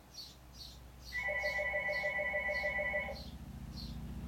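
Landline telephone's electronic ringer sounding one warbling ring of about two seconds, starting about a second in. Behind it a faint high chirp repeats about twice a second.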